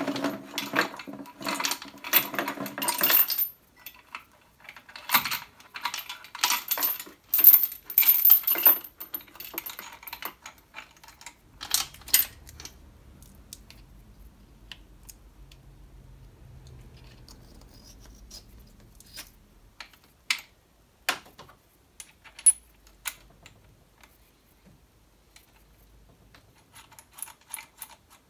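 Steel lifting chain rattling and clinking against metal as it is hooked onto the engine for the hoist, in two dense bursts over the first nine seconds or so. After that come scattered light metallic clicks and taps as hands work around the engine bay.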